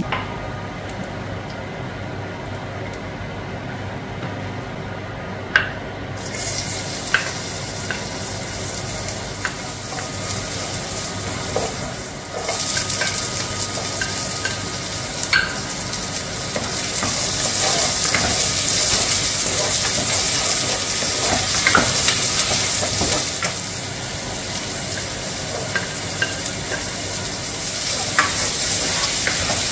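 Diced onion sizzling in hot oil in a nonstick pot, stirred with a spatula that scrapes and taps against the pot. The sizzling starts about six seconds in, dips briefly near the middle, then comes back louder.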